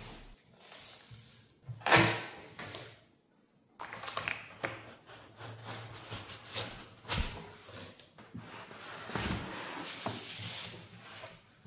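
Unboxing noise of a large cardboard box. Packing tape is slit with a box cutter near the start, with a sharp scrape about two seconds in. Then cardboard flaps, a foam sheet and the foam-cushioned machine rustle and scrape against the cardboard.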